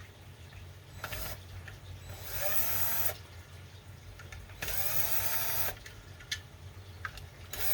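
Small cordless drill/driver running in short bursts, backing out the corner screws of an air pump's manifold. There are two runs of about a second each, the pitch rising as the motor spins up, and a third starts near the end. Small clicks fall between the runs.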